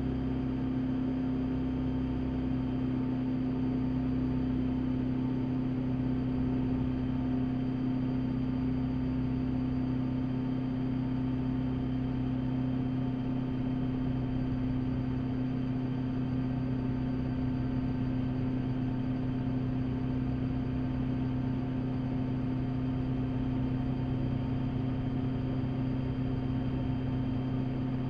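Rotorway experimental helicopter's engine and rotor running steadily, heard inside the cockpit as a constant deep drone with a low hum.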